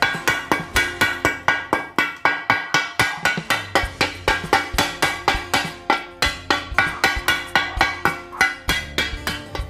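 Small hammer rapidly striking the rusty steel blade of an old shovel to knock off rust scale, about four strikes a second, each with a short metallic ring.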